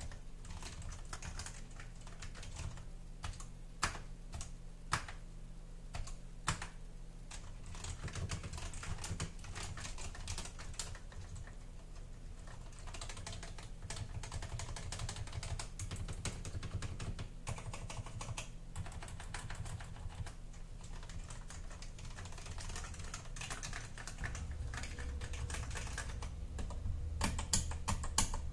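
Typing on a vintage Alps reed-switch ("Super Alps") keyboard: keys clacking in irregular bursts, with a few louder single strokes about four to six seconds in and dense, fast runs later.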